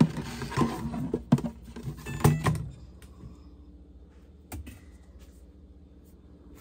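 Handling clatter of a plastic laundry detergent jug and a top-load washing machine: a quick run of clicks, knocks and rustles over the first couple of seconds, then quieter, with a single knock about four and a half seconds in.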